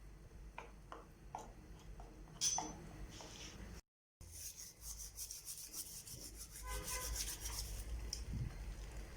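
A few light knocks and handling sounds, then quick rhythmic rubbing or scraping strokes, about eight a second, for several seconds.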